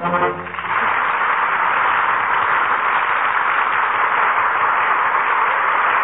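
A studio audience applauding steadily, heard through an old, narrow-band radio broadcast recording; the last notes of a musical number cut off about half a second in.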